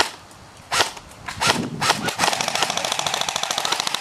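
Airsoft gun firing: a few single shots, then from about two seconds in a continuous rapid fully automatic burst of clicking shots.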